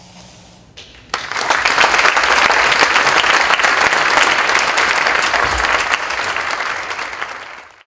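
Audience applauding: it breaks out suddenly about a second in, holds loud and steady, thins a little, then cuts off abruptly near the end.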